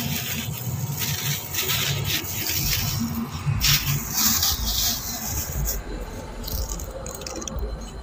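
A plastic carrier bag rustling and crinkling in irregular bursts as flower garlands are pulled out of it and handled, over low horror background music.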